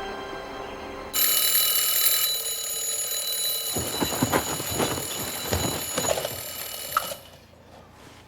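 An electric bell ringing continuously, starting suddenly about a second in and cutting off abruptly near the end, with a few knocks or clatters heard under it in the second half.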